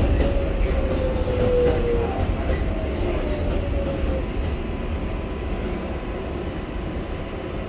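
New York City 7 subway train braking: its motors give a whine that falls in pitch over the first few seconds, over a steady low rumble of the wheels that slowly grows quieter as the train slows.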